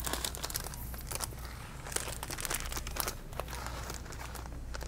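Plastic snack bag (Punjabi mix) crinkling in the hand as it is handled, in irregular crackles, over a steady low hum.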